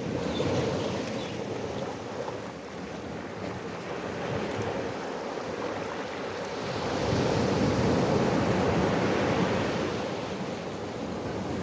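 Ocean surf washing in a steady rush, with a bigger wave surging about seven seconds in and easing off near the end.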